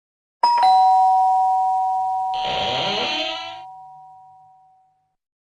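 Ding-dong doorbell chime sound effect: a higher note then a lower one, ringing out and fading over a few seconds. About two seconds in, a short rough, rasping sound cuts across the ringing.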